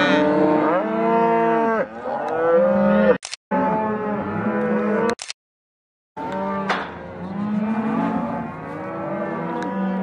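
A herd of penned beef cattle mooing and bawling, many calls overlapping. The sound drops out abruptly twice, briefly.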